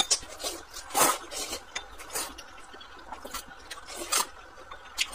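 Mouth eating sounds: glass-noodle vermicelli in sauce being slurped up, with wet chewing and lip smacks. Short sharp sounds come roughly once a second, the longest about a second in.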